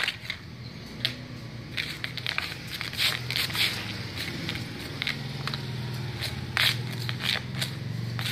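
Dry leaves crackling and scraping on concrete as a toddler brushes and grabs at them by hand, in short irregular crackles, over a low steady hum.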